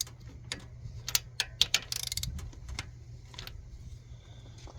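Hand ratchet wrench clicking in short, irregular runs while cylinder head bolts are run down a little at a time.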